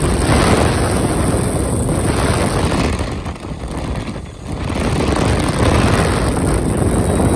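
Electric ducted fan of a Freewing MiG-21 RC jet running at high throttle on a bench test, a loud, steady rushing whoosh. The throttle eases back about three seconds in, dropping lowest a little past four seconds, then comes back up to full.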